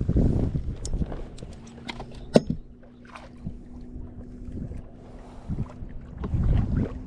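Low rumbling knocks of handling and movement in a small fishing boat, loudest at the start and again near the end, with one sharp click in between and a faint steady hum underneath.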